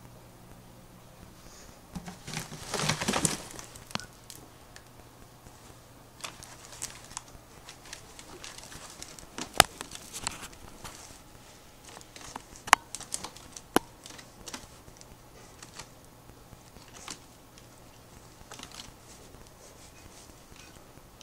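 Plastic-bottle crawl tube crinkling and rattling as a ferret scrabbles through it: a loud rustling burst about two seconds in, then scattered crackles and a few sharp clicks. A faint steady hum runs underneath and stops near the end.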